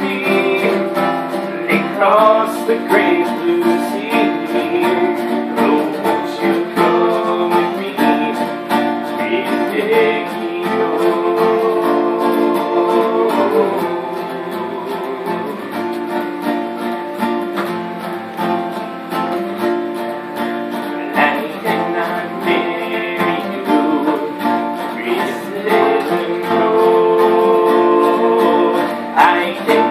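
Acoustic guitar strumming a folk tune, with some singing.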